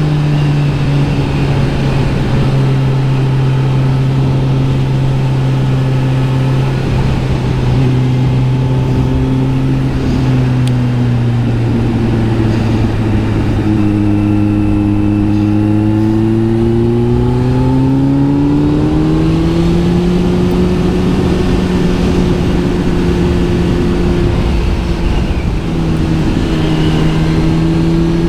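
Kawasaki Z900 SE's inline-four engine running through an SC Project S1 exhaust under riding, at a fairly steady pitch at first, then rising smoothly for several seconds past the middle as the bike accelerates, before levelling off again.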